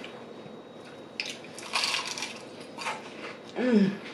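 Crunching bites of crispy Church's fried chicken: a crackly crunch about two seconds in and a smaller one after it, then a short hum-like voice sound near the end.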